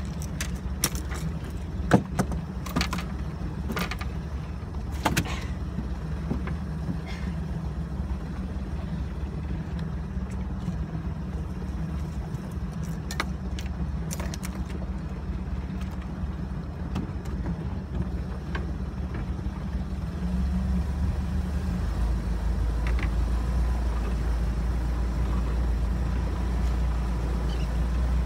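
Small fishing boat's engine running steadily at trolling speed. Sharp clicks and knocks come over the first few seconds, and the engine grows louder about twenty seconds in.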